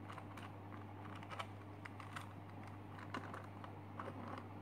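Plastic pieces of a Super Square One (SSQ-1) twisty puzzle clicking and clacking in quick, irregular clicks as its layers are turned by hand.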